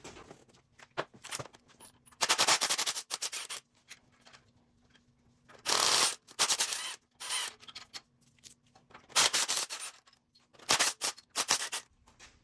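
Ratchet wrench clicking in four quick runs, loosening the bolts of the engine mount on a Honda K24 engine.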